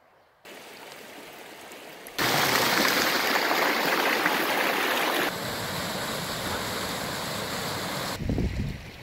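Rushing water of a canyon stream and waterfalls, a steady noise whose loudness jumps abruptly several times: much louder from about two seconds in, softer again after about five seconds. A brief low rumble near the end.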